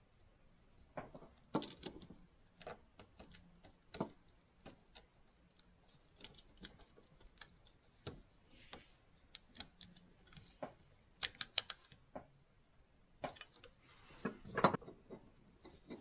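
Scattered faint clicks and taps of a plastic wall socket insert being handled and its terminals worked with a small screwdriver, coming in small clusters with gaps between.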